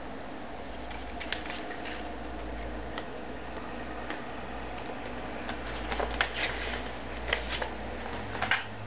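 Paper and card rustling and tapping as sticker sheets, bookmarks and a cardboard box cover are handled, in short scattered bursts that come more often in the second half, over a steady faint background hum.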